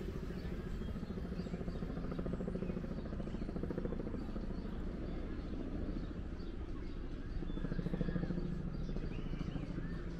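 A steady low mechanical drone with a fast flutter, swelling a little about eight seconds in, with a few bird chirps over it near the end.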